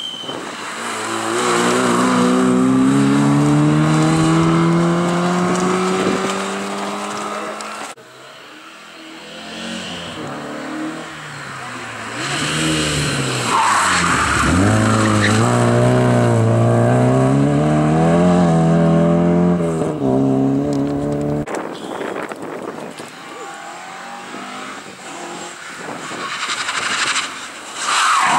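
Historic rally cars taking a corner one after another under hard acceleration, each engine note climbing as it pulls through the gear. The first, a Hillman Imp, holds one long rising pull for about eight seconds. After a sudden cut a second car's engine wavers and dips, then climbs again, and near the end another car comes in loud.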